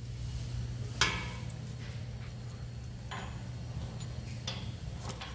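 Metal clanks and knocks of a rack-and-pinion steering rack being handled and set onto a chassis crossmember: one sharp clank about a second in, lighter knocks in the middle, and the loudest clank near the end, over a steady low hum.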